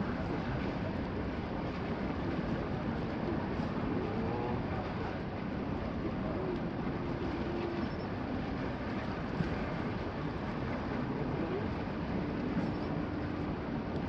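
Steady rushing outdoor background noise, with faint voices heard now and then.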